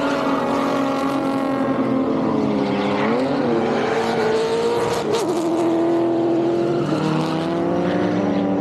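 Several drift cars sliding through a corner together, engines held at high revs, with their pitch dipping and rising a few seconds in and shifting again about halfway through, over the noise of the tyres spinning and sliding.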